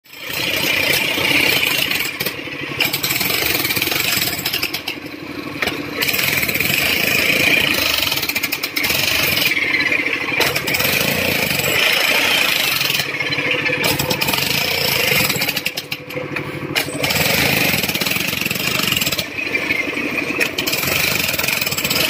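Corded electric demolition hammer breaking up asphalt: its chisel bit rattles rapidly and steadily against the road surface, with several brief lulls in the hammering.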